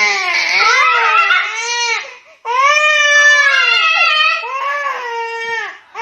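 A dog howling: two long, wavering howls, the second longer, with a third starting at the very end.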